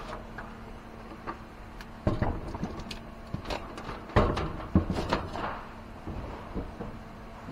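Knocks, thuds and scrapes of a boxy metal-cased appliance being turned and slid across a wooden workbench. The loudest knocks come about two seconds in and again at four to five seconds, over a faint steady hum.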